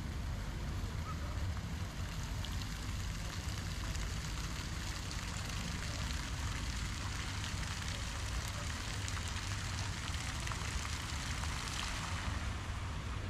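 Outdoor city street ambience: a steady low rumble with an even hiss over it and a few faint ticks.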